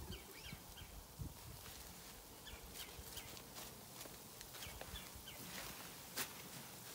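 Faint outdoor ambience after the music has stopped: small birds chirping now and then, with scattered light clicks and rustles and one sharper click about six seconds in.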